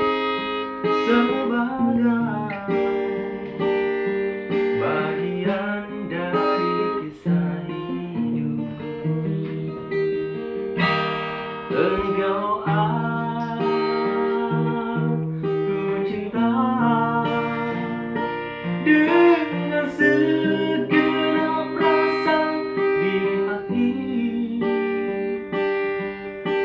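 Acoustic guitar playing a slow intro, picked notes mixed with strummed chords.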